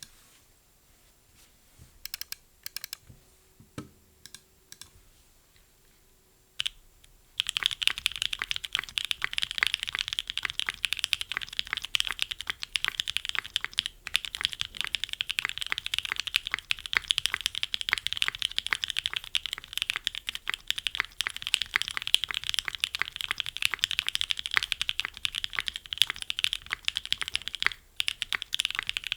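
Custom mechanical keyboard with NovelKeys Cream linear switches, an aluminium plate in a gummy o-ring mount and GMK keycaps: a few separate keystrokes, then from about seven seconds in, fast continuous typing, with a brief pause near the end.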